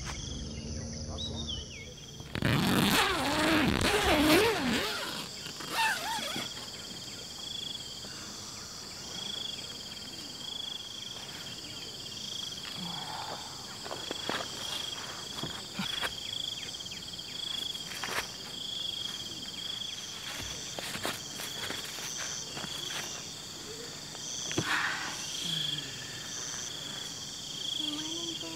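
Insects chirping in high, pulsing tones that run on steadily. About two and a half seconds in comes a few seconds of louder, jumbled sound with voices in it.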